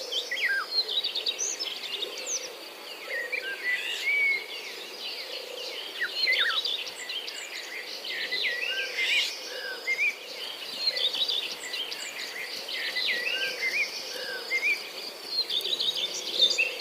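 Many birds chirping and calling in overlapping short rising and falling notes, over a steady high insect drone, with a soft low note repeating about once a second.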